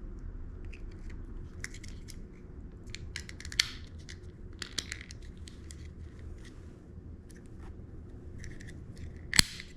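Small plastic parts of a car power mirror switch clicking and tapping as they are handled and fitted together, with a few sharper snaps, the loudest near the end.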